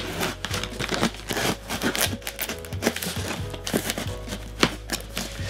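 Background music under a dense run of irregular crinkling and crackling clicks as a cardboard delivery box and its packaging are opened by hand.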